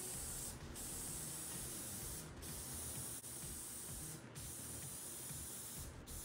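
Aerosol spray adhesive hissing from the can in passes about two seconds long, with short breaks between them.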